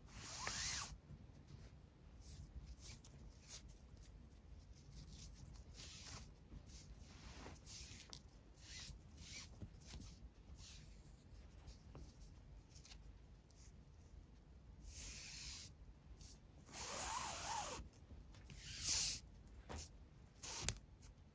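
Faint rubbing and swishing of 4 mm nylon paracord being drawn through the weave and handled: a short swish at the start, scattered light ticks, and a few more swishes in the last third.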